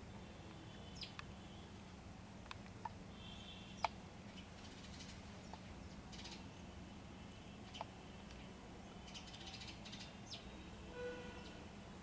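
Scattered short bird chirps and a few harsher buzzy calls, the sharpest chirp about four seconds in, over a steady low hum.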